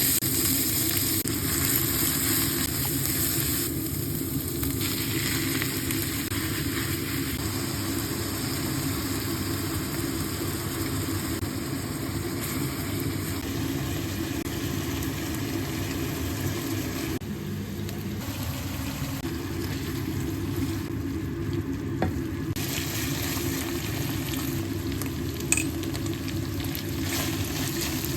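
Minced pork and fermented fish paste sizzling as they are stir-fried in a pan, over a steady low rumble. The sizzle is brightest in the first few seconds, then eases.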